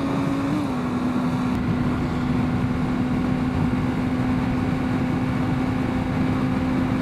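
Motorcycle engine running at a steady cruise, one steady engine note with a brief small rise about half a second in, under constant wind and road noise.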